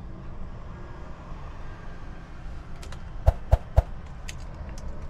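MAN TGX truck's diesel engine running steadily low inside the cab, with three quick sharp clicks about three seconds in.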